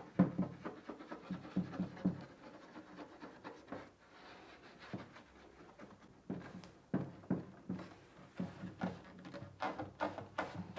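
Fingertip rubbing white glue back and forth into a crack in a cello's wooden rib, with uneven rubbing strokes on the varnished wood. Several sharper knocks come in the second half.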